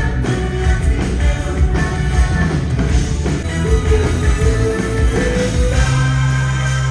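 Rock music played loud through a concert PA during a band soundcheck, with a held melody line that rises slightly about midway.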